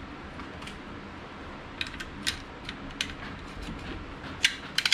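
Light clicks and taps as a Bostitch pneumatic nail gun is set against a wooden board, then near the end sharp, loud shots of the nail gun driving nails into the wood.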